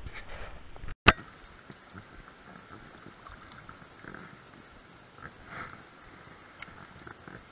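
A sharp click about a second in where the recording cuts, then the steady rush of a shallow river running over stones, with a few faint knocks.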